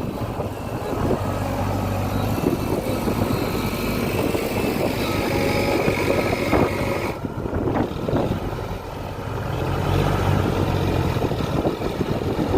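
Heavy diesel engine of earth-moving machinery running steadily with a low hum; the high hiss drops off abruptly about seven seconds in.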